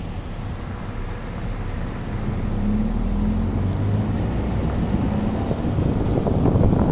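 Car driving on asphalt, heard from inside: low engine hum and road rumble, getting gradually louder.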